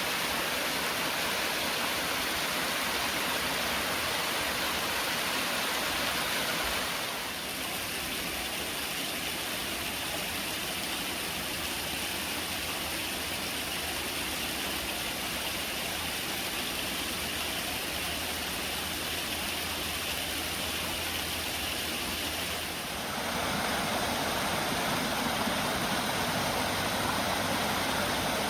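Running water, a steady even rush. It turns slightly quieter and duller about seven seconds in, then brighter and fuller again some fifteen seconds later.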